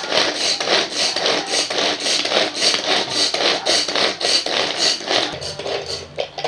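Plastic pull-cord vegetable chopper being worked by hand: the string is yanked out and rewinds over and over, spinning the blades in the bowl as they chop an onion fine. The strokes come in a fast, even rhythm that weakens and dies away about five and a half seconds in.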